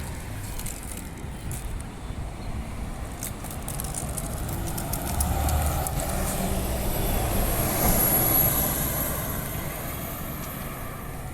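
Bus engine running as the bus pulls away and drives past, growing louder to a peak about eight seconds in and then fading, with a thin high whine near the peak.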